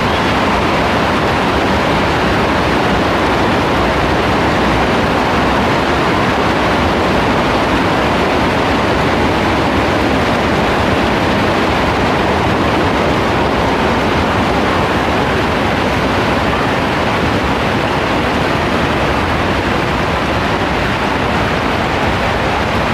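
Heavy rain falling steadily, a dense unbroken hiss with no let-up.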